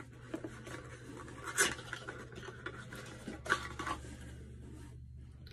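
Light handling noise of a small cardboard cosmetics box being turned over in the hands: soft scratching, with two brief taps about a second and a half and three and a half seconds in, over a low steady hum.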